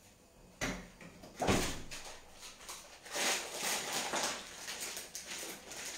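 Kitchen handling noises: a sudden bump about half a second in and a knock a second later, then rustling and light clatter from about three seconds on.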